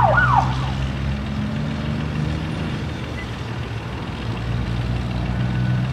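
A steady low mechanical hum, engine-like, over a noisy background. Right at the start come two quick whistle-like chirps, each rising and then falling in pitch.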